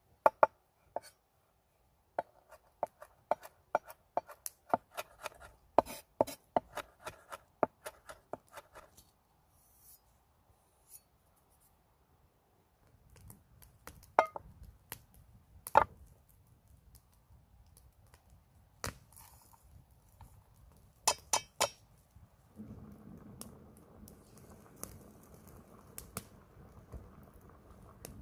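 A knife chopping on a wooden cutting board: a quick run of sharp knocks, several a second, for about nine seconds. Then come a few scattered knocks and clinks, and from about two-thirds of the way in a steady low rushing noise sets in.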